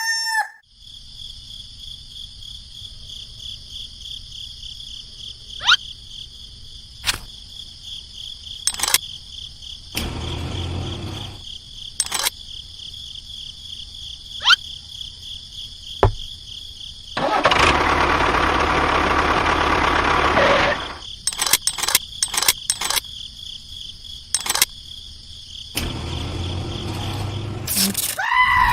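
Countryside ambience: insects keep up a steady high, pulsing drone, with scattered sharp clicks. About two thirds of the way through, a louder rushing, whirring noise runs for a few seconds, and there is a shorter, fainter stretch of it about ten seconds in.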